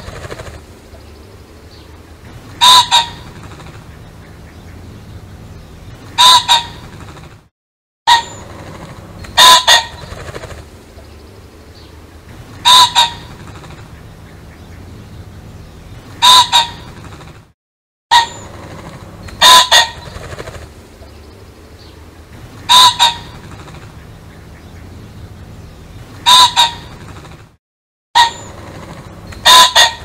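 Pheasant calling: a loud two-note call repeated about every three seconds, over a faint hiss. A recorded loop breaks off into a short silence about every ten seconds.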